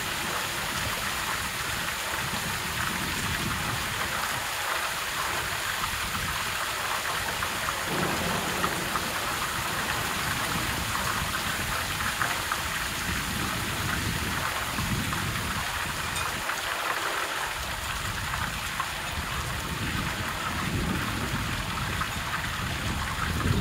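Steady rainfall, an even hiss of drops with fine crackle, under low rumbles of thunder that swell and fade several times.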